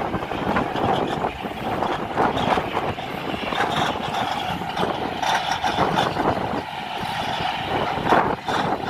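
Komatsu D375A-8 crawler bulldozer running, its large diesel engine working steadily with irregular clanks throughout.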